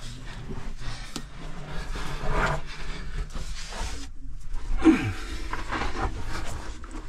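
A person crawling and squeezing through a narrow rock passage: body and clothing scraping and scuffing over rock and dirt, with a short low grunt falling in pitch about five seconds in.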